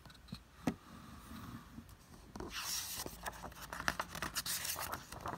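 A page of a hardcover picture book being turned by hand: paper rubbing and rustling, strongest over the second half, with a single sharp click about two-thirds of a second in.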